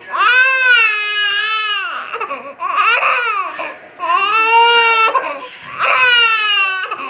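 Baby crying: a run of several long, high cries with short breaks for breath between them.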